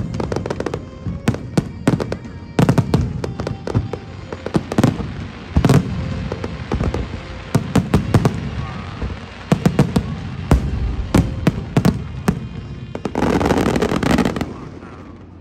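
Aerial fireworks bursting overhead: a rapid, irregular series of sharp bangs, then a dense spell of crackling about thirteen seconds in that dies away just before the end.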